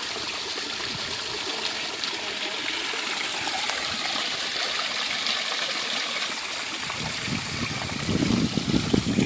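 Backyard waterfall and stream: water steadily trickling and splashing over rocks. About seven seconds in, a louder, rougher low noise joins it.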